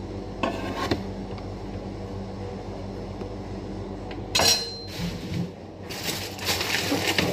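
Kitchen knife and dishes clattering on a wooden cutting board, with the loudest event a single sharp metallic clatter with a brief ring about halfway through, and clinking and scraping near the end. A steady low hum sits underneath.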